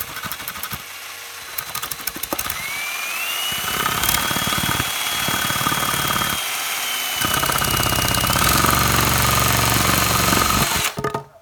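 Electric drill driving a LEGO chainsaw's crankshaft, the motor whine rising in pitch as it speeds up and then holding steady, over a fast rattling clatter from the plastic blade going back and forth. It stops abruptly near the end.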